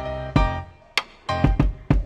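Background music: a rhythmic track with drum hits and plucked guitar chords.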